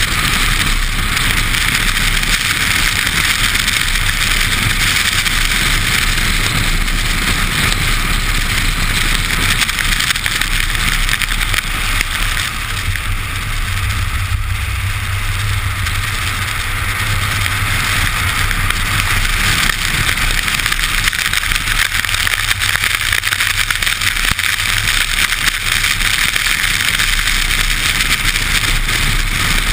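Rushing hiss of tyre spray and road noise from a Škoda Octavia RS's wheel on a soaking wet track at speed, with wind on the microphone and the engine running low underneath. It eases slightly for a few seconds about twelve seconds in.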